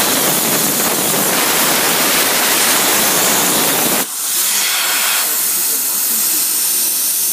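CNC plasma torch cutting 1/4-inch mild steel: a loud, steady rushing hiss from the arc. It cuts off suddenly about four seconds in, leaving a thinner steady hiss of air from the torch.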